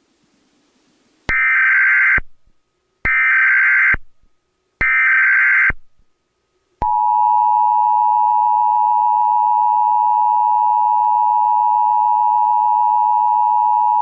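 US Emergency Alert System tones: three short bursts of digital SAME header data, each about a second long, then the EAS two-tone attention signal starting about seven seconds in, a steady loud tone held to the end.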